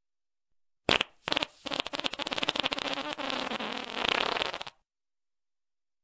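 Fart sound effect: a short blast about a second in, a second brief one, then a long rapid sputtering fart of about three seconds that cuts off suddenly.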